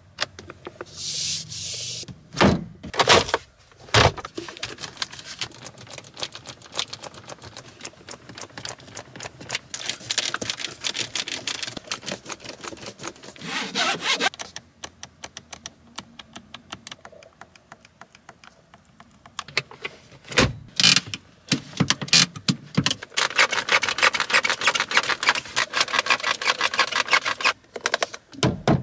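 A 2022 Hyundai Elantra's cabin controls being handled: a run of clicks from the light and indicator stalk and dash buttons, with several louder knocks on the trim a few seconds in and about two-thirds through. Near the end a steady hiss of air comes in while the climate-control buttons are pressed.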